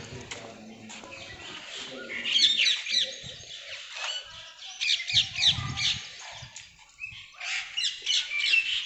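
Birds chirping and squawking in short bursts, a flurry about two seconds in, another about five seconds in and more near the end.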